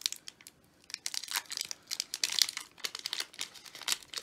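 Foil Pokémon trading card booster pack wrapper crinkling as it is handled and opened, a dense run of crackles starting about a second in.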